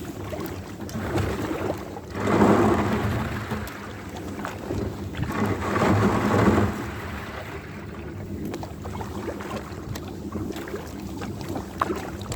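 Water sloshing and splashing around a kayak on open water, with wind buffeting the microphone; the noise swells loudly twice, about two seconds in and again around five to six seconds in, with small scattered knocks throughout.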